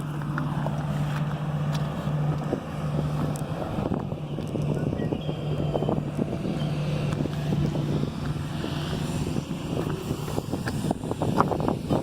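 Wind buffeting the microphone, with a steady low hum underneath that drops out now and then.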